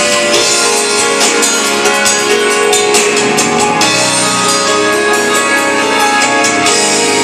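A live band playing a song at a sound check, with drums and cymbal hits over sustained keyboard chords, loud and steady.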